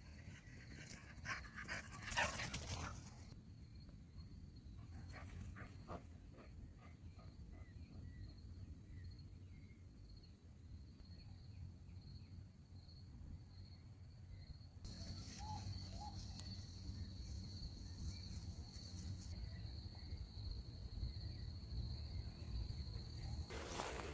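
A puppy panting and making small sounds, loudest about two seconds in, over a steady high-pitched whine in the background.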